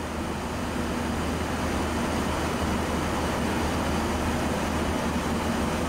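Steady flight-deck noise of an airliner in flight: a constant rush of airflow and air conditioning with a low hum beneath.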